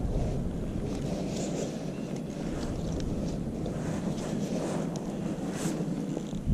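Wind buffeting the microphone outdoors, a steady low rumble, with a few faint brief rustles on top.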